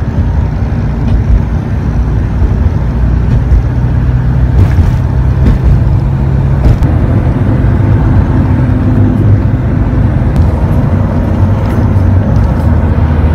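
An engine running with a loud, steady low drone.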